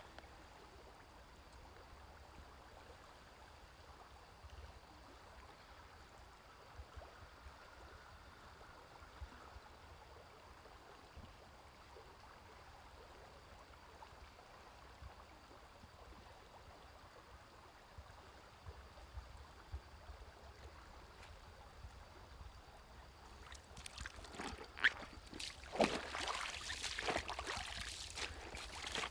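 Faint, steady flow of a shallow river. Near the end, a run of irregular splashes as someone wades out through ankle-deep water.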